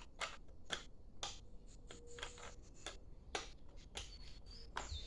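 Faint, light clicks and taps of hand tools working at glued-in screws on a brush cutter's engine, coming roughly every half second.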